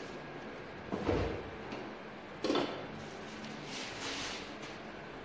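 Stainless steel pot and steamer insert being handled: two knocks about a second and a half apart, then a brief hissing scrape, as the glass lid is set onto the pot.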